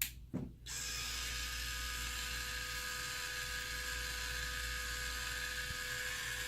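Two short clicks, then the small 12-volt electric motor of an Add A Motor Model 80 vertical blind controller starts and runs with a steady whirr. It keeps going until its stop foot comes round to the actuator.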